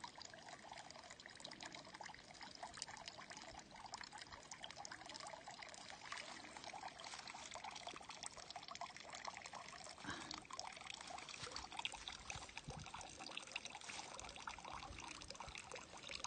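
Water trickling steadily from a spout into a concrete trough.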